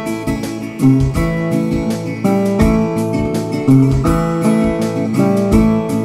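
Instrumental country background music: strummed guitar over a steady beat.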